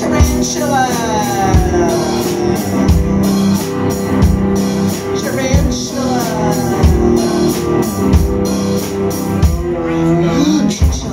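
Live rock band playing: a Telecaster-style electric guitar and a drum kit keeping a steady beat, with two long downward pitch swoops in the guitar line.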